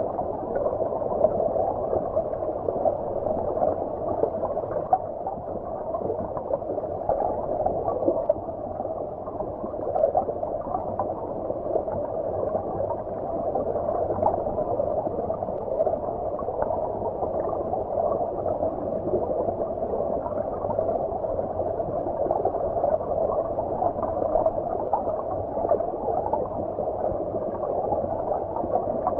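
Steady, muffled gurgling of running stream water, heard as if from underwater, with no high hiss or splash.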